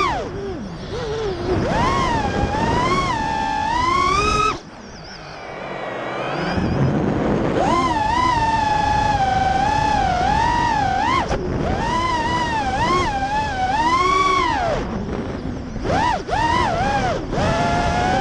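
Emax brushless motors and propellers of an FPV racing quadcopter, heard from its onboard camera: a high whine that rises and falls in pitch with the throttle. About four and a half seconds in the throttle is cut and the whine nearly dies for about two seconds before building back, with a few brief dips again near the end.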